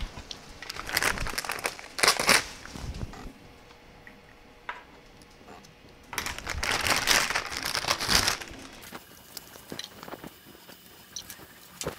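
Plastic packaging crinkling as a filament sample is unwrapped, in two bouts about a second in and again from about six to eight and a half seconds in, with a single light click between them.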